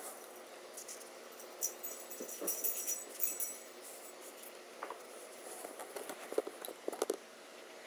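Dog collar tags jingling in short bursts as the dogs move about on the bed, loudest a couple of seconds in. A few soft thumps and rustles of paws on the bedding follow near the end.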